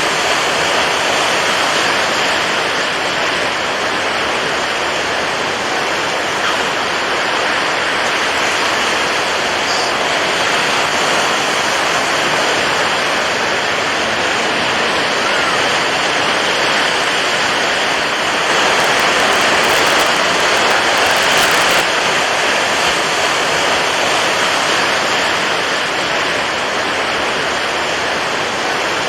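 Steady, even rushing of water with no break or clear rhythm of surges, swelling slightly about twenty seconds in.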